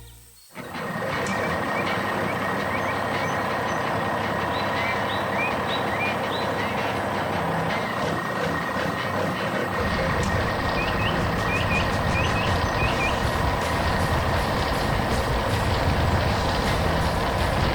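Heavy truck engine running steadily, with a steady high-pitched tone over it and birds chirping in short runs. About ten seconds in, the engine's low rumble grows heavier.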